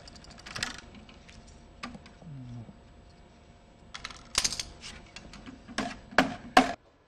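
Hand tool scraping and rubbing along a metal organ pipe in short, sharp strokes: one about half a second in, then a quick run of strokes from about four seconds, the loudest near the end.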